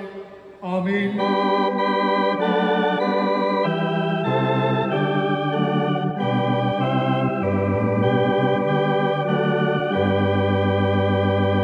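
Organ playing the introduction to a hymn in held chords that change about every half second to a second over a moving bass line, setting the tune before the congregation sings.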